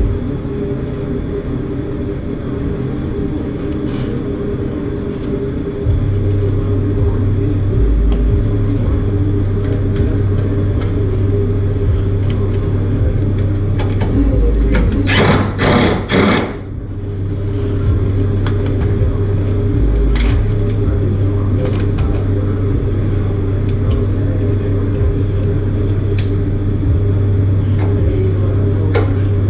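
Cordless impact wrench hammering on a truck's cab mount bolt in three short bursts, about halfway through, over a steady low hum.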